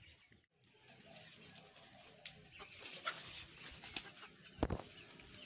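Chickens clucking, with short scraping clicks and one sharp knock about four and a half seconds in.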